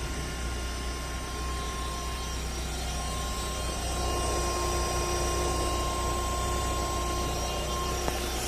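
Fiat Punto 1.4 Fire engine running at idle with a steady shrill whine over its low hum, a noise that gets worse with revs and which the owner traces to a vibrating oil filter rather than the steering box, belts or a bearing. A second, lower tone joins about halfway through.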